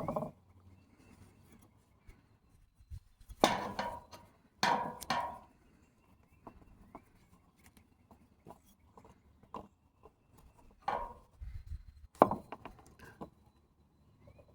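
Handling noise from tools and a power-cord housing being worked on: scattered clicks and knocks, with the loudest clusters about three and a half seconds in and again around eleven to twelve seconds, and light ticks between.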